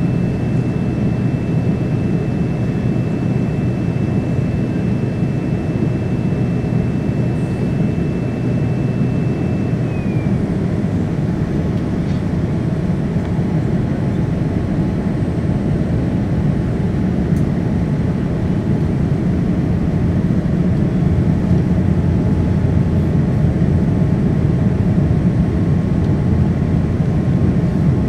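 Steady cabin noise inside a Boeing 787-9 descending to land: a deep airflow and engine rush from its Rolls-Royce Trent 1000 turbofans. A thin high whine steps down in pitch about ten seconds in, and the overall level rises slightly after about twenty seconds.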